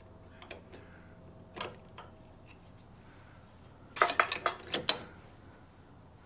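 A quick cluster of sharp metallic clinks about four seconds in: steel lathe tooling being handled as the toolpost's tool holder is loosened off. A few faint clicks come before it.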